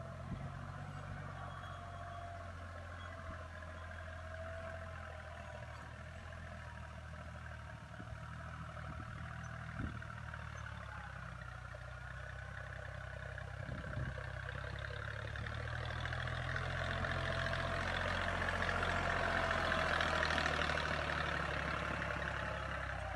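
Deutz Fahr Agromaxx 4050E tractor's three-cylinder diesel engine running steadily under load as it pulls a tine cultivator through tilled soil, a low drone with a higher whine above it. It grows louder in the last several seconds as the tractor comes close.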